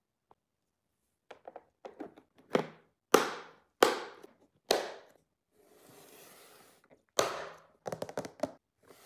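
A clear plastic compartment snack box being shut: its plastic lid and clasps snap and click, with four sharp snaps about two-thirds of a second apart, then a brief scraping rustle of plastic, another snap and a few small clicks near the end.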